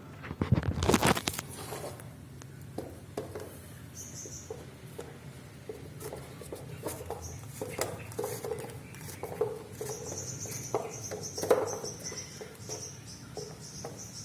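Small camera tripod being handled and extended: plastic and metal parts clicking, knocking and rattling, with a louder scraping rustle about a second in.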